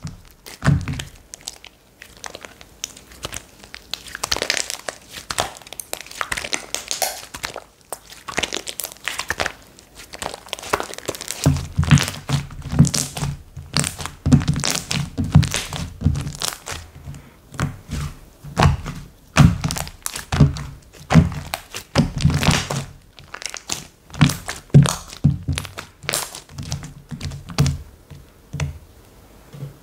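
Slime worked by hand: rapid sticky clicks and crackles as it is squeezed and stretched, joined about a third of the way in by repeated soft low thuds as it is pressed and folded.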